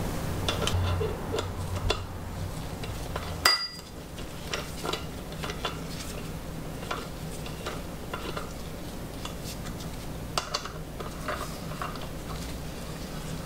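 Hex keys and a steel valve spring compressor clinking and tapping against a Honda K-series cylinder head while the tool's bolts are tightened: many light metal ticks, with one sharp ringing clink about three and a half seconds in.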